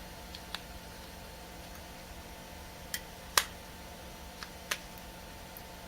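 Five or so sharp clicks and taps of hard plastic and metal, the loudest about three and a half seconds in: battery cells being put back into the camera's battery holder and the camera being switched on.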